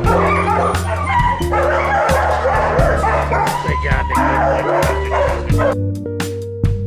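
Many shelter dogs barking and yipping together in their kennels, over background music with a steady beat. The barking stops near the end, leaving only the music.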